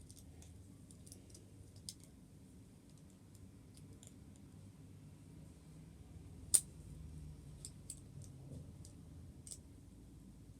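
LEGO pieces being handled and fitted together: faint scattered plastic clicks, with one sharper click about six and a half seconds in.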